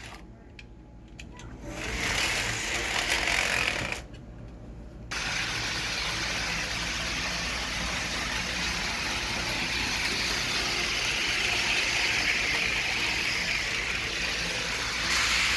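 HO-scale model train running along its track: a steady whir from the small electric motor and wheels. It dips away for about a second around four seconds in, then runs on evenly.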